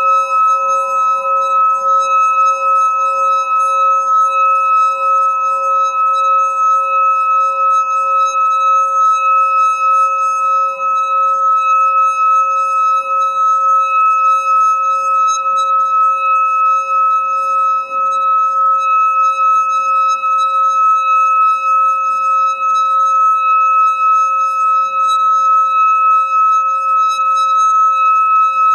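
Singing bowl rubbed around its rim with a stick, singing one unbroken tone with several bright overtones above it and a quick, even wobble in its lowest note.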